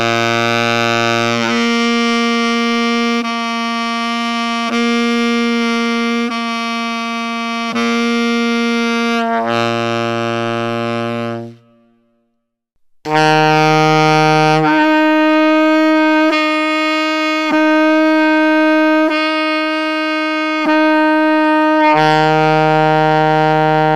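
Tenor saxophone playing an overtone drill: a loud sustained low C, then the octave above sounded as a harmonic on the low C fingering, alternated several times with the normal middle C fingering, with a small break at each switch, and finishing back on the low C. About halfway through, after a short silence, an alto saxophone plays the same drill with a slightly higher low note.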